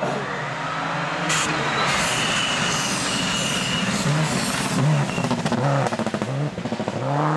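Subaru Impreza rally cars' turbocharged flat-four engines revving hard at full throttle, the pitch climbing and dropping back through gear changes as they brake into and power out of a corner, with tyre hiss on a wet road. A burst of rapid crackling comes about six seconds in.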